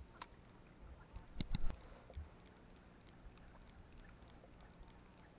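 Sharp knocks against a fishing kayak, a quick cluster about a second and a half in, then quiet water lapping at the hull with a few faint light ticks.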